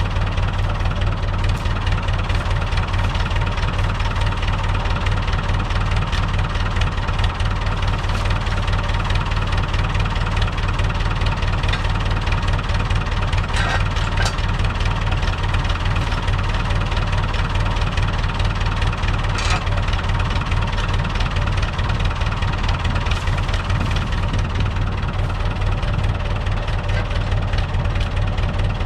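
Long 560 DT tractor engine running steadily at a low, even speed.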